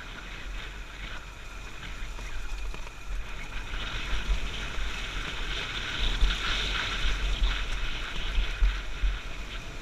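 Honda XR250 Tornado's single-cylinder four-stroke engine running on a rough trail, muffled under wind buffeting on the camera microphone. The engine noise grows louder about four seconds in.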